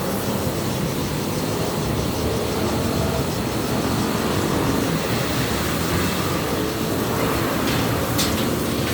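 A steady, low mechanical rumble.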